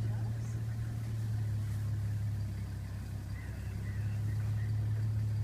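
Vehicle engine idling with a steady, unchanging low hum.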